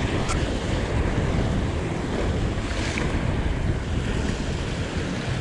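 Wind buffeting the microphone over a steady wash of sea waves.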